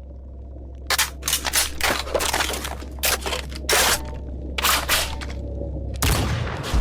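Gunfire sound effects: sharp shots in irregular clusters over a low steady hum, then a heavy explosion boom near the end.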